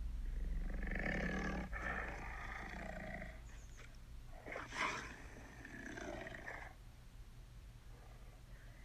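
Recorded tiger calls coming from an augmented-reality 3D tiger: two long, rough calls, the second starting about four and a half seconds in.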